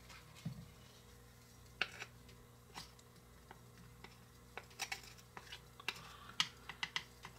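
Small wooden spoon scraping and tapping in a small metal pan as cooked mushrooms are scooped out into a plastic bowl: scattered light clicks and scrapes, more of them in the second half.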